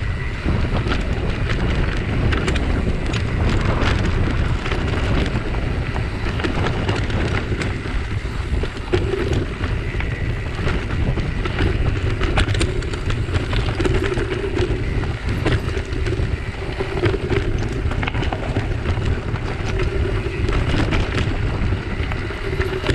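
Mountain bike descending a rocky, loose dirt singletrack: wind buffeting on the bike-mounted camera's microphone, with many sharp rattles and knocks as the bike and its knobby tyres run over stones.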